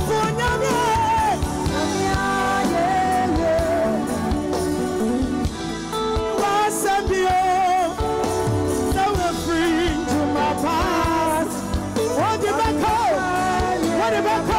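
Live band music with a singer's voice wavering and gliding over steady held chords and regular drum hits.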